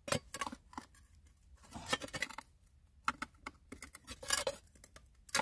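Rocks clicking and scraping as a hand tool pries at stones wedged in a rock crack, in irregular short knocks with a few louder clusters. The rock is not coming loose.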